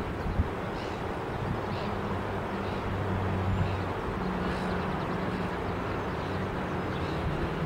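A low, steady engine hum from a vehicle out of the picture, over faint outdoor background noise.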